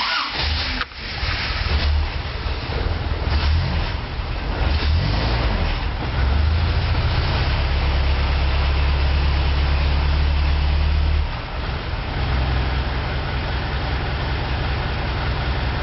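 Car engine starting, then running. It speeds up and runs louder from about six seconds in, then drops back to a lower idle about eleven seconds in.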